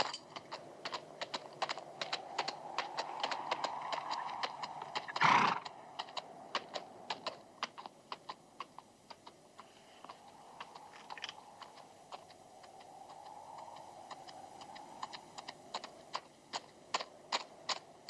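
Horse hooves clopping on hard, rocky ground at a steady walk, about two to three hoofbeats a second, with one short loud snort from the horse about five seconds in.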